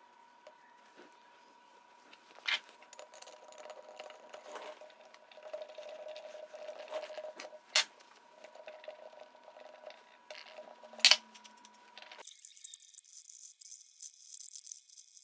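Quiet metal handling as steel jaws are fitted into a freshly greased four-jaw lathe chuck, with three sharp metallic clinks standing out.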